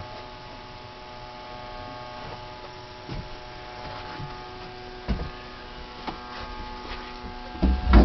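Steady electrical hum made of several steady tones, from the solar power shed's electronics. A few dull low bumps come through as the camera is carried.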